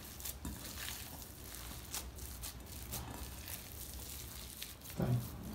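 Hands kneading a raw ground-beef mixture in a glass bowl, mixing it until it binds: faint, irregular soft crackles.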